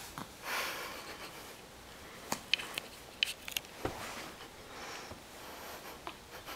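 Soft rustling of bedsheet and cotton clothes as a baby rolls over onto its tummy on a bed, followed by a few small clicks and taps and one soft thump.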